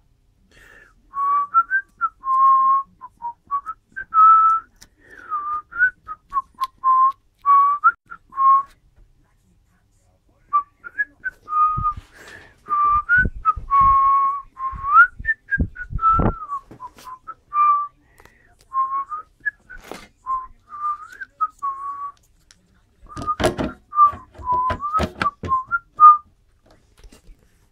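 A man whistling a tune: a single clear pitch gliding up and down in short phrases, breaking off briefly about nine seconds in. Knocks and thumps from handling come in about halfway through and again near the end.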